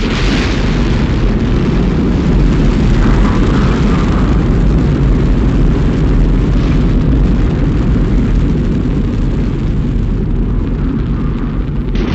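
Space Shuttle launch: the rocket engines' steady, heavy rumble during ascent, loudest in the bass.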